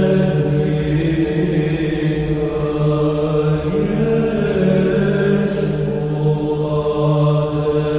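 Slow sung religious chant: voices holding long notes over a steady low drone, as in Orthodox church chant.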